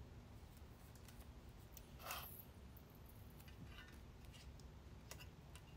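Near silence: room tone, with faint handling noise, a brief soft scrape about two seconds in and a few faint ticks later.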